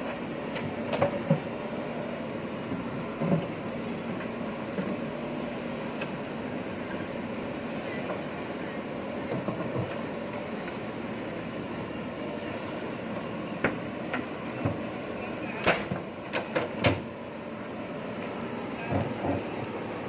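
JCB backhoe loader's diesel engine running steadily while its steel bucket pushes a concrete hume pipe into place, with sharp metallic knocks and clanks of the bucket, a couple near the start and a cluster about three-quarters through.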